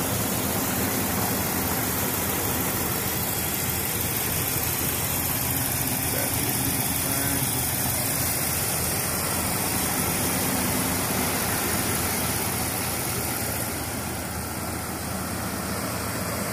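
Dodge 5.9 Magnum V8 idling steadily, heard close up from the open engine bay. It is a little quieter near the end.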